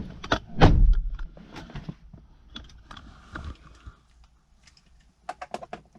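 Someone getting into a car: a heavy thump about a second in, then scattered clicks and rustles, and a quick run of clicks near the end.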